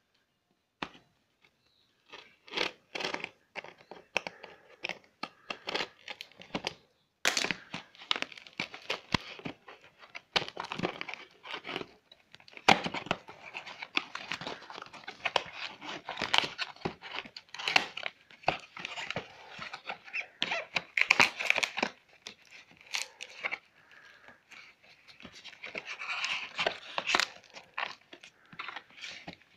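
Cardboard box being opened by hand: a utility knife slitting clear packing tape, then the cardboard flaps and tape being pulled and torn open. It comes as a long run of irregular scraping, ripping and crinkling.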